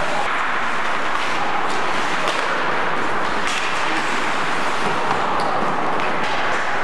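Ice hockey rink game noise: a steady wash of rink and crowd noise with scattered sharp clacks of sticks and puck during a scramble in front of the net.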